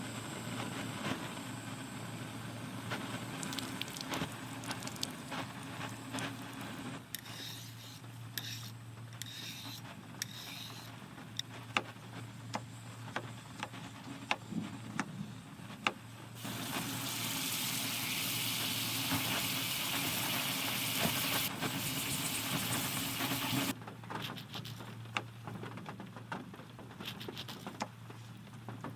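Wood fire crackling with scattered sharp pops over a steady bed of rain. A louder, brighter hiss of rain comes in abruptly about two-thirds of the way through and cuts off suddenly several seconds later.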